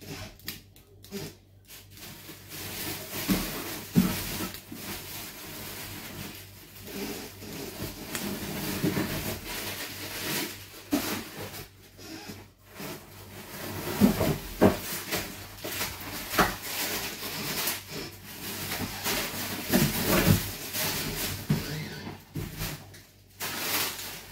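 Margarine melting and starting to sizzle in a stainless steel pot, a faint hiss with fine crackle. Scattered knocks and clicks of kitchen handling sound over it, with a few heavier thuds.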